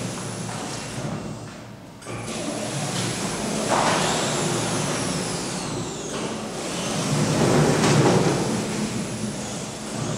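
High-speed PVC roller shutter door running through a close-and-open cycle, its drive motor and rolling fabric curtain making a steady mechanical whir. A whine falls in pitch about four seconds in, and the sound swells again about three seconds later as the door runs back up.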